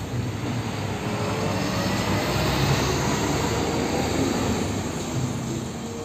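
Heavy tanker truck driving past: engine and tyre noise swelling to a peak about halfway, then fading.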